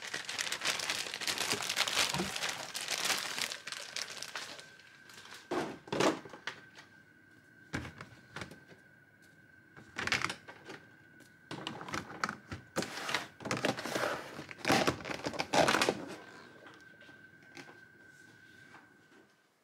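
Packaging crinkling as it is handled, in irregular bursts: busiest in the first few seconds and again in the middle, then dying away near the end.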